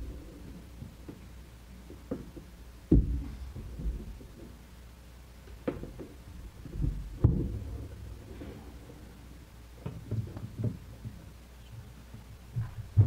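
Scattered thumps and knocks of things being handled on a wooden lectern, picked up close by the lectern microphone. A few louder bumps come in the first half and lighter knocks and taps follow later.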